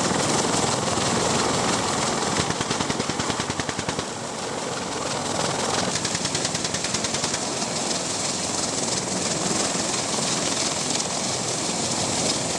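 Rapid automatic gunfire, long strings of shots in quick succession, over the steady noise of helicopters.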